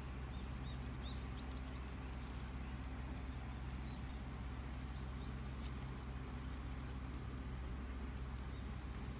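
A steady low motor hum runs throughout. Over it come light rustling clicks and a few short, high, rising squeaks, clustered in the first two seconds and again around four seconds in.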